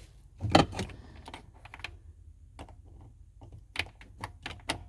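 Small clicks and taps of an ignition lock cylinder and key being handled at the steering column: a louder knock about half a second in, then scattered light clicks, with a quick run of clicks near the end.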